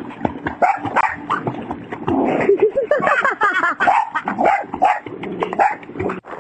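Boxer puppy yelping and whining in a swimming pool while it splashes about, with water splashing around it.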